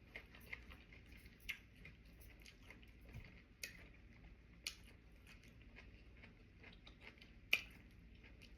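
A person chewing sushi close to the microphone: soft wet clicks and smacks of the mouth, scattered through, with one sharper click near the end.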